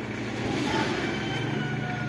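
Street background noise: a steady low traffic hum with faint music over it.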